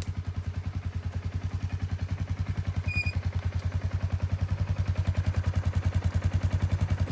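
Side-by-side utility vehicle's engine idling: a steady low pulsing of about thirteen beats a second, getting a little louder about four seconds in. A short high chirp sounds about three seconds in.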